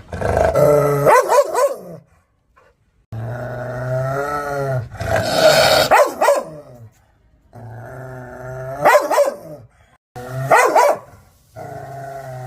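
An aggressive dog growling in long, low, pitched rumbles that break into bursts of sharp barking, about four times over, with short silent gaps between.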